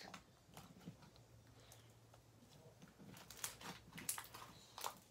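Slime being kneaded and squeezed between the fingers: faint scattered clicks and small pops, coming more often after about three seconds.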